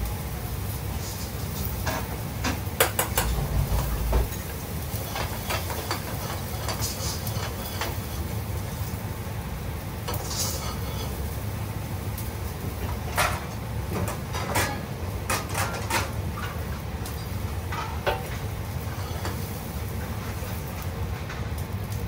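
Pans and utensils clinking and knocking now and then, over a steady low background hum.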